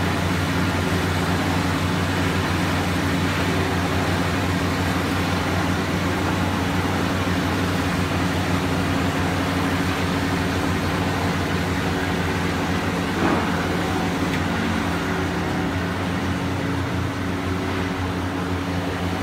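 Gas-heated pork rind batch fryer running: a steady machine hum with several low tones under an even hiss, from the fryer's motor and burner and the rinds frying in oil. A short knock about two-thirds of the way through.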